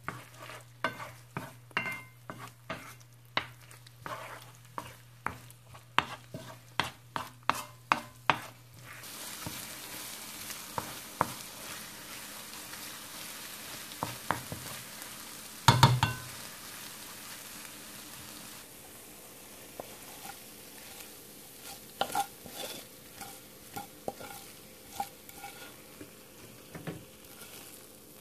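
Wooden spoon stirring and scraping scrambled eggs with cheese, onions and green peppers in a nonstick pan, quick repeated taps for the first nine seconds. Then a steady hiss of the eggs sizzling, with one loud clatter about sixteen seconds in. Scattered scrapes follow near the end as the eggs are scooped onto a plate.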